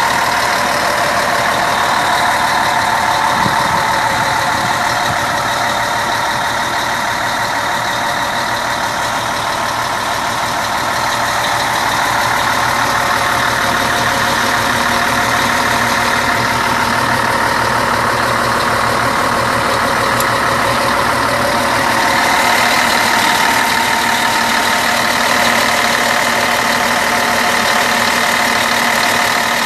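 Bus's rear-mounted diesel engine idling steadily.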